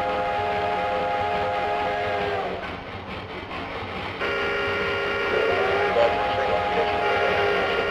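Recorded multi-note train whistle sounding two long blasts, one ending about two and a half seconds in and the next starting about four seconds in, over a steady running rumble.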